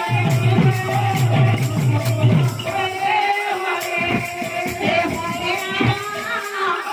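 Kirtan devotional music: voices singing to a barrel drum and jingling hand cymbals in a steady beat. The low drum strokes thin out about halfway through.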